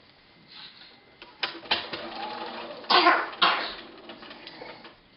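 Paper foundation pattern and fabric rustling and crinkling as the freshly sewn block is handled at the sewing machine, with a couple of light clicks about a second and a half in and two louder rustles about three seconds in.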